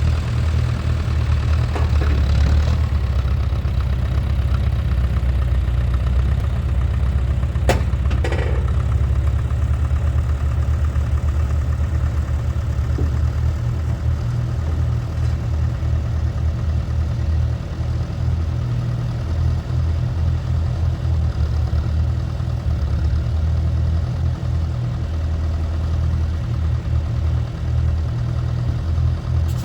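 International 3414 backhoe's diesel engine running steadily, with one sharp click about eight seconds in.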